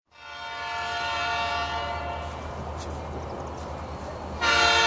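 Diesel locomotive's multi-chime air horn sounding: a long blast that slowly fades, then a louder blast starting near the end.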